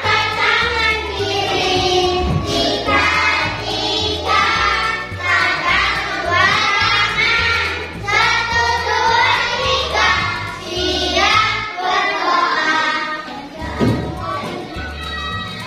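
A class of young children singing a prayer song together in unison, over accompanying music with a steady, stepping bass line.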